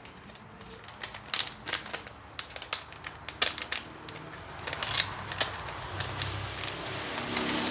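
Plastic snack packet crinkling and crackling as it is opened and handled, in many irregular sharp clicks.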